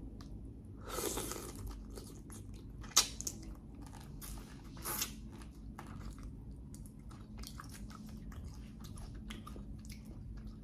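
Close-miked eating of shrimp: chewing with many small wet clicks, plus a sharper crunch about three seconds in and another about five seconds in.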